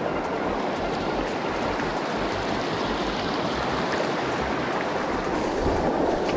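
Fast river current rushing over a shallow rocky riffle: a steady wash of moving water.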